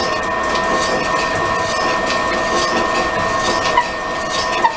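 A slow-speed pillar drill driving a fly cutter into an ironwood bearing block. The motor gives a steady whine, and the cutting noise pulses about twice a second as the cutter bites the wood. There are a couple of sharp clicks near the end.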